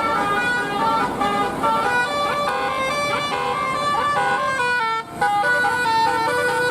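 Indonesian bus 'telolet' multi-tone air horn playing a melody of stepped notes, with a short break about five seconds in.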